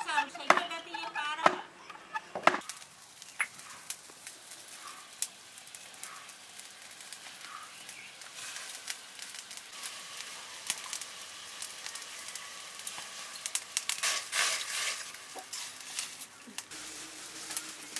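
Wooden dheki, a foot-operated rice-pounding lever, thudding into its pit a few times in the first couple of seconds. After that come quieter clicks and scrapes, with faint bird calls.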